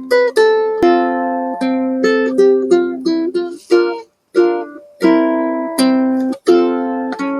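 Solo plucked-string instrumental music: picked melody notes over chords, each ringing out and fading. There is a brief pause a little after four seconds.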